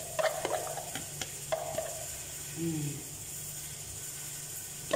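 A spoon clicking and tapping lightly against a ceramic bowl a few times in the first couple of seconds, over a steady background hiss.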